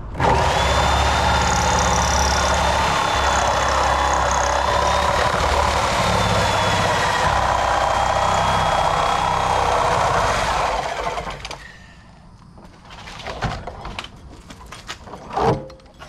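Tiger Saw reciprocating saw with a Diablo demolition blade cutting through the steel shell of a water heater tank: a loud, steady buzzing cut with a high ringing tone through it. The saw stops about eleven seconds in, followed by a few short knocks.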